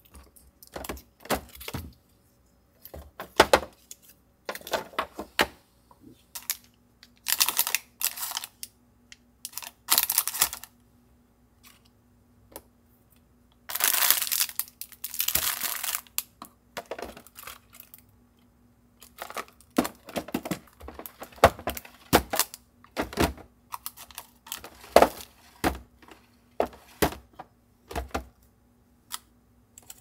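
Plastic bags and packaging crinkling and rustling in irregular bursts, mixed with clicks and knocks of plastic containers being picked up and set down, over a faint steady hum.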